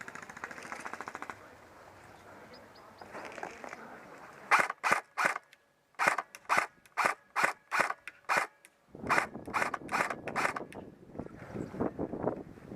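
Airsoft rifle firing single shots in quick strings, about three shots a second, with a pause between strings.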